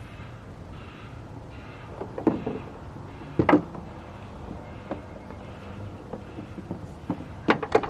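Scattered sharp clicks and knocks of parts being handled while working on the car, over a steady low rumble. The loudest knocks come around three and a half seconds in, with another cluster near the end.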